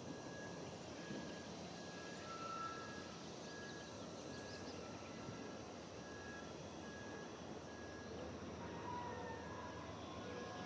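A bell dinging steadily, a little under twice a second, as a Norfolk Southern freight train approaches in the distance over faint background hiss. Near the end, the locomotive's horn begins to sound faintly.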